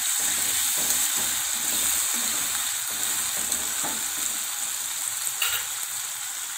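Chopped vegetables sizzling steadily in hot oil in a metal kadhai while being stirred with a spatula.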